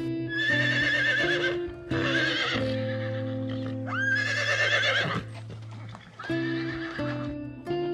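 A horse whinnying about four times, each call wavering in pitch, the third starting with a quick upward sweep, over steady background guitar music.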